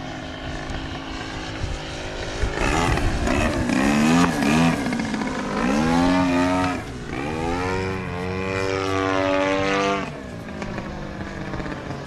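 Radio-controlled model airplane's engine and propeller buzzing overhead, its pitch swinging up and down as it throttles and passes, loudest in the middle and falling off about ten seconds in. Wind noise rumbles on the microphone underneath.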